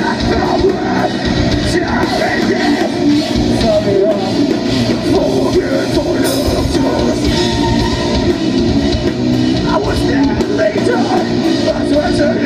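Heavy rock band playing loud and live: electric guitars, bass and drums, with the singer yelling into the microphone.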